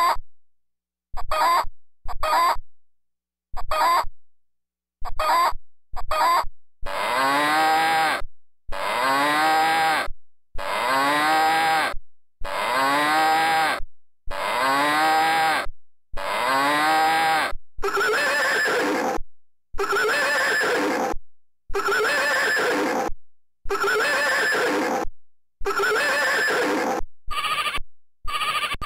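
Wolo 345 Animal House electronic car horn playing its voice-chip animal sounds, each call repeated with short silent gaps. First come short hen clucks about once a second, then a bull's moo repeated every second and a half or so from about seven seconds in, then another animal call from about eighteen seconds, and a sheep bleat starting near the end.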